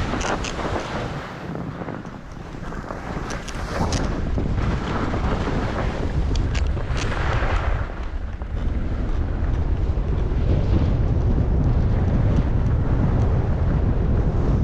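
Wind buffeting the microphone while skiing downhill. In the first half, skis hiss and scrape over the snow in short swells as they turn. From about halfway on, a steady low wind rumble grows louder and takes over.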